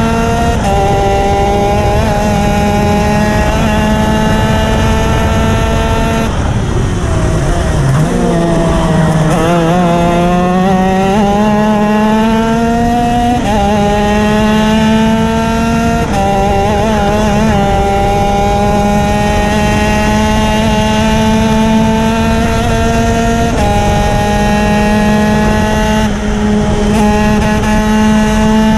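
A racing kart's engine at full throttle, heard from on board. Its pitch climbs steadily along the straights, drops sharply about seven seconds in as the kart slows for a corner, then builds back up, with a few small steps in pitch along the way.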